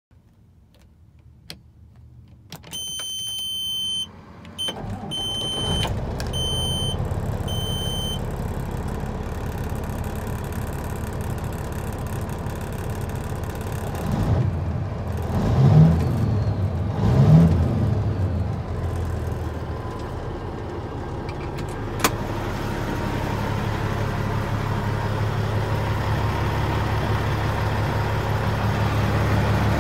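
Caterpillar 6NZ (C15) diesel in a Peterbilt 379 starting up after four dash warning beeps, then idling with a steady rumble. About halfway through it is revved twice, each rev rising and falling back, and it then settles into idle again.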